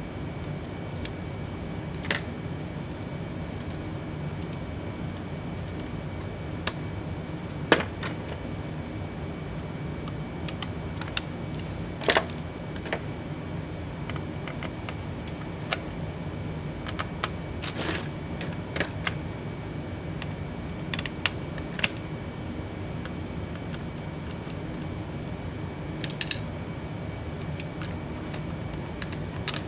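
Irregular clicks and taps of small tools and parts being handled while an HP ZBook Firefly 14 G7 laptop is taken apart, a few of them sharper and louder, over a steady background hum.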